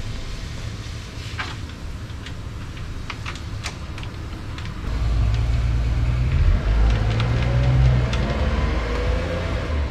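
Low rumble of a motor vehicle that swells about five seconds in, with a few light clicks and taps of parts being fitted in an open engine bay early on.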